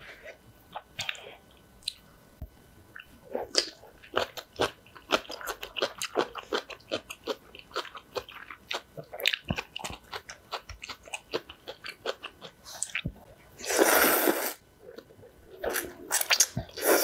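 Close-miked crunching and chewing of napa cabbage kimchi, many short crisp crunches, then loud slurps of ramen noodles about 14 seconds in and again near the end.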